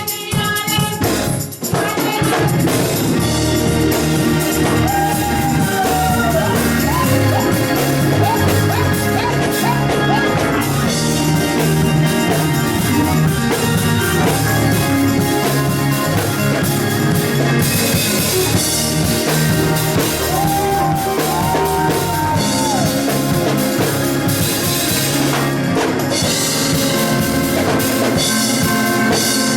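Gospel music from a live band, a drum kit keeping the beat under held melody lines, with some singing.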